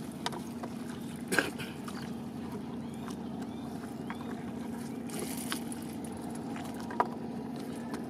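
A green nylon ring net being handled in a wooden boat: rustling and a couple of sharp knocks against the wooden hull, the loudest about a second and a half in and another near the end, over a steady low hum and water.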